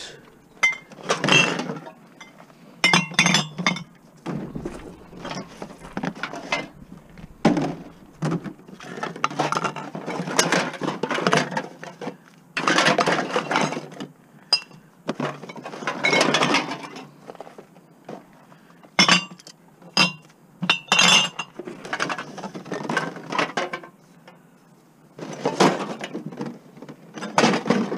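Empty glass bottles and aluminium cans clinking and rattling against each other as they are pulled by hand from a heap of empties, with a few sharp, ringing glass clinks among irregular handling noise.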